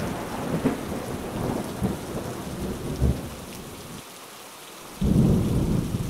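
Rain falling steadily, with rumbles of thunder; a loud rumble breaks in about five seconds in.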